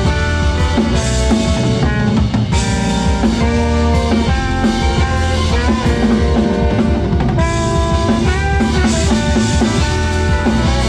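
Live band playing an up-tempo groove: drum kit with guitar and held melodic notes over a steady beat.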